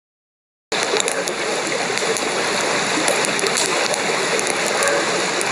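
Steady dense hiss of outdoor ambience with scattered sharp crackles, starting abruptly under a second in.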